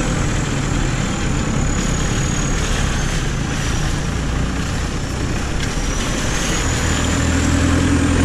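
VW Beetle-based off-road buggy's engine running as it drives over muddy forest ground. The engine note grows stronger near the end.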